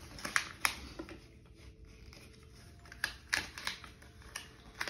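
Plastic packaging being pulled off a new electric scooter: a handful of short sharp clicks and crinkles, with a quieter stretch in the middle.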